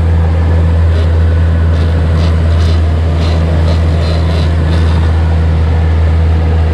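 Honda four-stroke outboard motor running steadily at trolling speed, a loud, even low drone. A few faint ticks sound in the middle.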